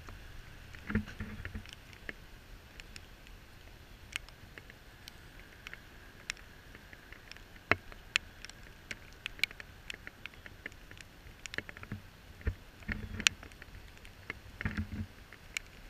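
Steady rushing hiss of a creek in flood over the road, with scattered sharp ticks and a few low thumps about a second in and near the end.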